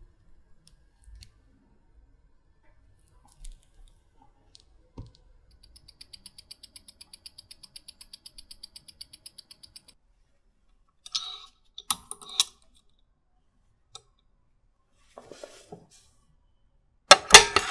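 Mechanical watch ticking amplified through a timegrapher's speaker, a steady fast beat of about eight ticks a second: the Omega calibre 1120 running at 28,800 beats an hour with its timing back to normal after service. Scattered clicks and taps follow, and near the end come two loud sharp knocks as the lid of the water-resistance tester is closed.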